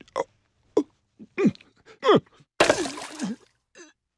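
A man's pained groans and gasps: four short cries, each falling in pitch, then a loud, harsh, wheezing gasp about two and a half seconds in. He is in the throes of a heart attack.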